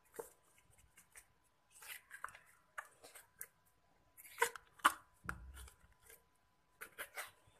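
Slime being squeezed out of a soft plastic bottle and pulled by hand into a glass bowl: irregular wet crackles and clicks, loudest about four and a half to five seconds in, with a soft low thump just after.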